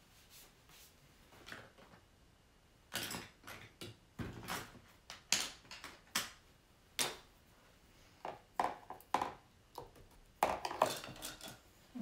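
Art supplies handled at a work table: a dozen or so short, irregular knocks, clinks and scrapes, starting about three seconds in and bunching up again near the end, as containers and brushes are picked up and set down.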